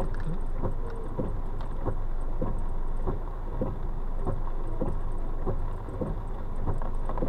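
Heavy rain on a car, with a steady low rumble and short knocks about two to three times a second as drops and drips hit the body.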